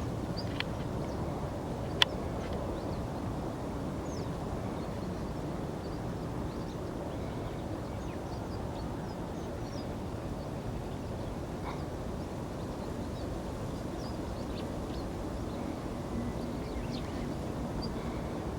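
Siberian long-tailed rosefinch giving short, high, thin calls, scattered every second or so and faint over a steady low rumble. A single sharp click about two seconds in.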